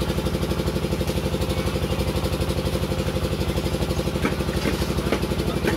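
A small engine running steadily at idle, with an even low chugging beat of about seven pulses a second. A few faint scrapes of a metal spatula against the wok come in the second half.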